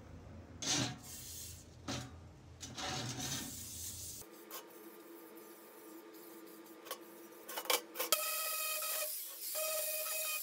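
A metal paint can scraped and shifted on a steel workbench, a few short scrapes in the first seconds. About eight seconds in, an angle grinder starts with a steady whine and grinds paint off the can's lid.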